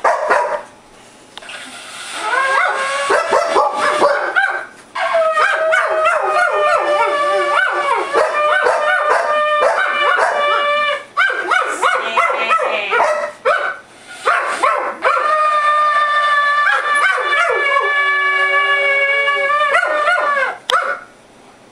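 A dog howling along in long wavering howls with yips, head raised, in several stretches with short breaks. Under it, held notes from a harmonica played alongside as the dog's 'sing' trick.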